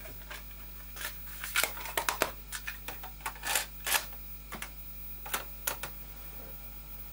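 Plastic clicks and clacks of a cassette being loaded into a ZX Spectrum +2's built-in Datacorder tape deck and its lid snapped shut, a quick irregular run of sharp knocks. A few lighter clicks follow as keys are pressed to bring up the tape loader.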